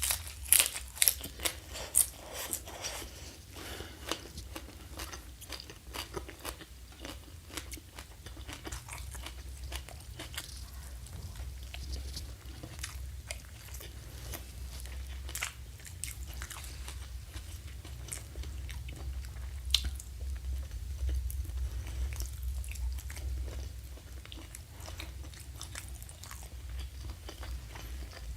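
Close-miked mouth sounds of a person biting and chewing crunchy food: several loud crunches in the first two seconds, then steady chewing with small wet clicks and one sharp crunch about twenty seconds in, over a low steady hum.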